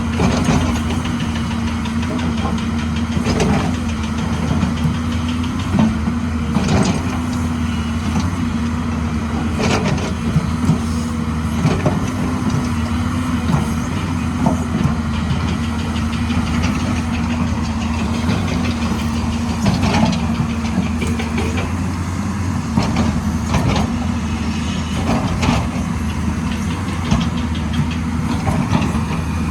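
Excavator's diesel engine running steadily, with irregular sharp knocks over the top.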